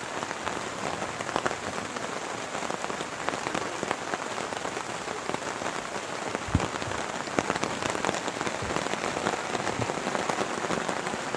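Heavy rain falling steadily, with many individual drops ticking sharply close by. A single dull thump about six and a half seconds in.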